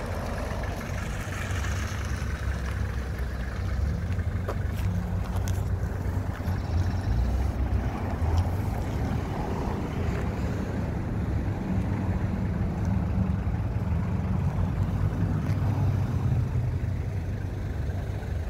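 A vehicle engine running with a steady low rumble.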